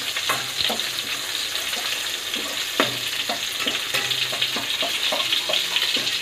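Minced garlic and chicken breasts sizzling in hot oil in a nonstick pan, the garlic being fried toward brown. A spatula scrapes and stirs through the pan in repeated short strokes, one sharper scrape about three seconds in.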